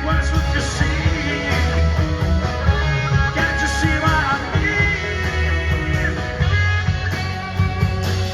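Live rock band playing: electric guitar with bending lead notes over bass and drums, with no sung words.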